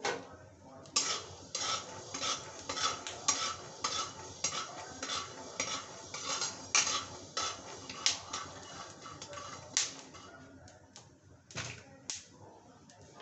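A spatula scraping and knocking round a kadhai (wok) as peanuts are stirred while roasting, the nuts rattling across the pan. The strokes come two to three a second and thin out to a couple of last knocks near the end.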